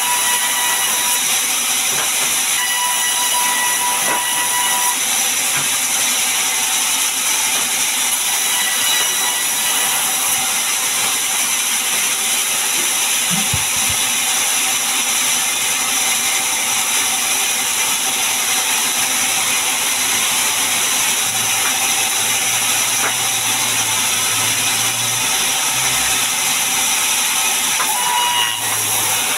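Large vertical band saw of a sawmill running steadily between cuts, giving a constant high-pitched hiss.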